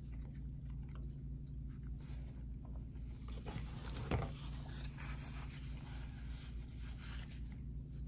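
A person chewing a mouthful of microwaved doner kebab in soft pitta bread, with small wet mouth sounds over a steady low hum. A short, louder sound comes about four seconds in.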